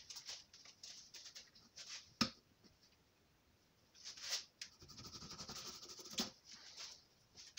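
Faint scratching and clicking of a knife and a hand tool working at a cut in a tyre's rubber sidewall, with one sharper click about two seconds in.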